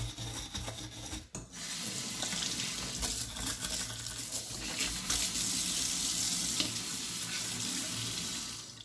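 A brush scrubbing in short strokes for about a second, then, from about a second and a half in, a steady rush of tap water running into a stainless steel sink. The water cuts off at the very end.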